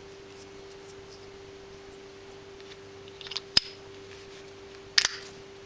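Plastic clicks as a Fizik saddle pak's clip is pressed into its mount under the rear of a Fizik saddle: a few light taps, then one sharp click about three and a half seconds in and another about five seconds in.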